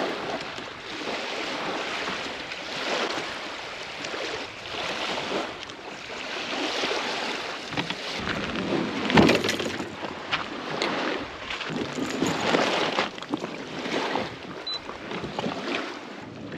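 Small waves lapping and splashing, swelling and fading every second or two, with a few sharp knocks about nine seconds in.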